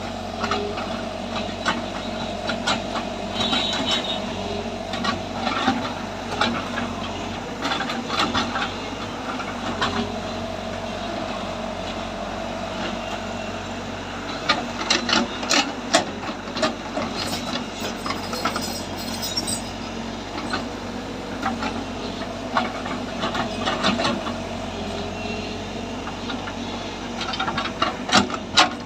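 Heavy earth-moving machine working, its diesel engine running steadily under repeated irregular metallic clanks and rattles.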